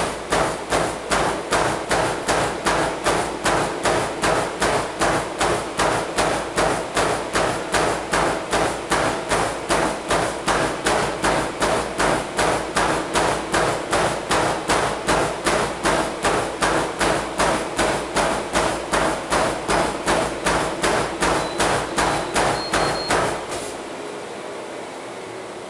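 Footfalls of a runner in Vibram FiveFingers minimalist shoes landing on a moving treadmill belt, an even beat of about three steps a second over the steady hum of the treadmill's motor and belt. Near the end the steps stop as the runner steps off onto the side rails, and the treadmill runs on alone.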